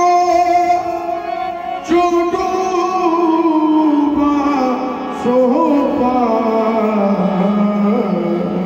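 Qawwali music: a singer holding long melismatic notes that slide slowly downward in pitch, over sustained harmonium accompaniment.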